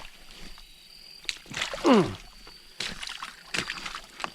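Creek water sloshing and splashing around someone working in a breached beaver dam, with a few sharp knocks and a short falling grunt about two seconds in. A faint high steady whine comes and goes.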